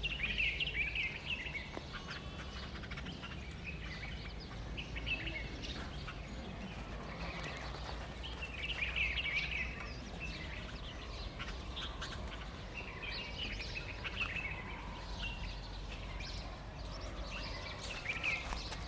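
Birds calling in short chirpy clusters every second or two, over a steady low background rumble.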